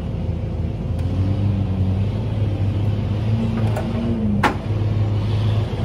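Off-road vehicle engine running steadily, its pitch shifting slightly, with a sharp click about four and a half seconds in.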